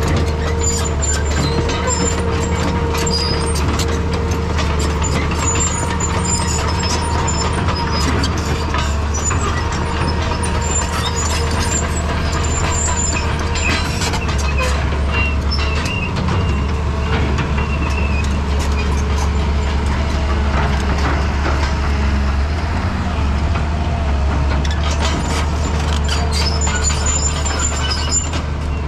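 Excavator's diesel engine running steadily, with a steady whine over it and scattered metallic clanks and knocks from the machine working.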